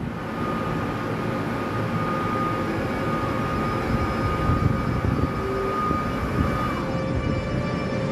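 Siemens EU44 Husarz (ES64U4 Taurus) electric locomotive rolling slowly past at low speed: a steady rumble with a high electric whine from its traction equipment, the whine dropping in pitch about seven seconds in.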